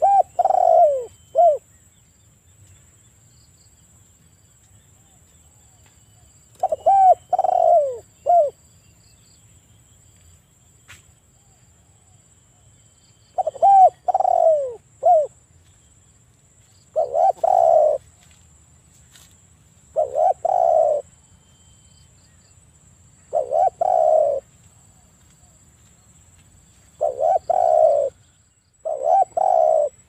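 Spotted dove (tekukur) cooing. It gives eight short phrases of two or three coos a few seconds apart, each note dipping in pitch.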